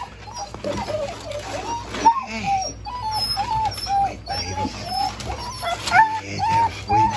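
Black German Shepherd puppies whining: short, high whimpers repeating about twice a second, with a couple of sharp knocks.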